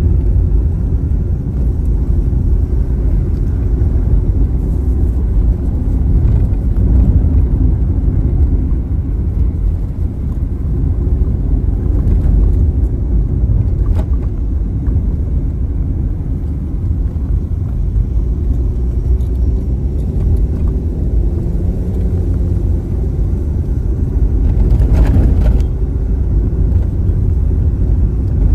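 A car's engine and tyre rumble heard from inside the cabin while driving along a road, a steady low rumble throughout, with a brief louder, brighter noise about 25 seconds in.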